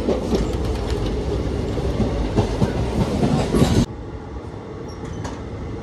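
Passenger express train running at speed, heard from an open coach doorway: a heavy rumble with wheels clattering over rail joints. About four seconds in, the sound cuts suddenly to a quieter, steadier rumble.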